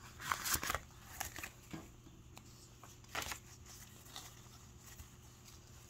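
Clear plastic zipper envelope of a cash binder crinkling and paper dollar bills rustling as cash is handled, a handful of short rustles with the loudest about half a second in and another about three seconds in.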